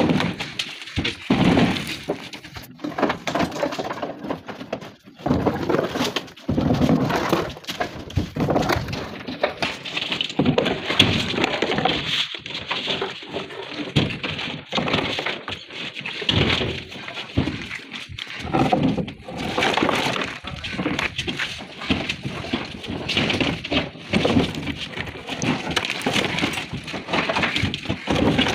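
Flat natural stone slabs (Tarkwa flat stone) clattering and scraping against each other as they are pulled off a stacked load and set down on the truck floor: an irregular run of knocks, clinks and grating scrapes.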